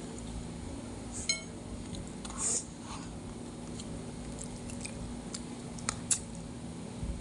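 Close-up eating sounds: someone chewing battered fried snacks, with a few short crisp bites and clicks scattered through, over a steady low hum.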